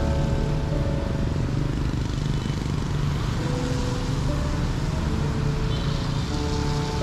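Steady rumble of road traffic, with motorbike and car engines and tyre noise, and short pitched tones now and then.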